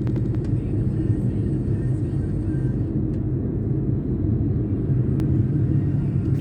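Steady low rumble of a taxi in motion, road and engine noise heard from inside the cabin, with a faint tick about five seconds in.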